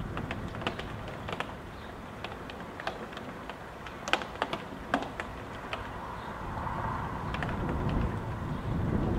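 Wind and rain heard from inside a house: scattered raindrops tapping sharply and irregularly, over a low rumble of gusting wind that swells near the end.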